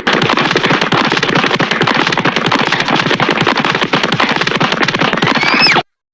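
Hanna-Barbera cartoon sound effect: a fast, dense rattle of clicks, with a short rising whistle near the end before it cuts off suddenly.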